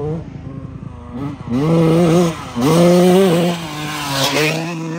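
Dirt bike engine revving in two loud surges of throttle, pitch climbing and falling back after each, as the bike rides through the mud and passes close by. A hiss of spraying mud and water comes from the rear tyre as it goes past near the end.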